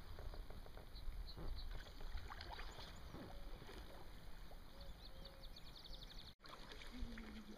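Kayak paddles dipping and splashing in calm river water, with a steady low rumble of wind on the microphone. Short runs of faint, high, rapid chirps sound twice in the background.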